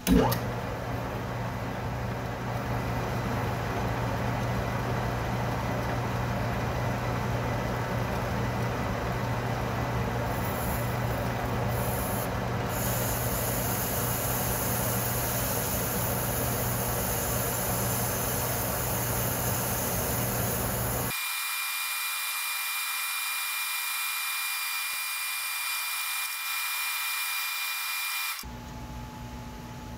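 Atlas metal lathe running steadily while taking a light cut on a backplate blank, a constant motor-and-belt hum with a sharp noise right at the start. About 21 seconds in the sound changes suddenly to thin high tones with the low hum gone, and near the end it drops quieter.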